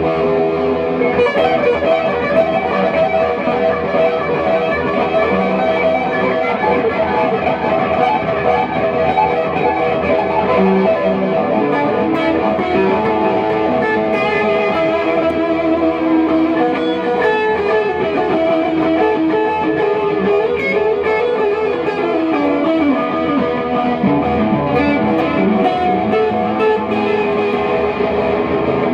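Electric guitar playing a continuous melodic tune, the notes changing steadily.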